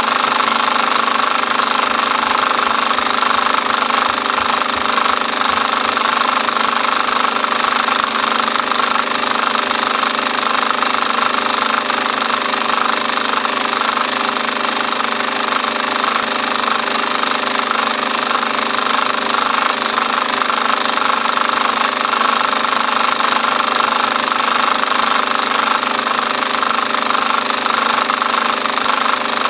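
Film projector running with a steady, rapid mechanical clatter and hum.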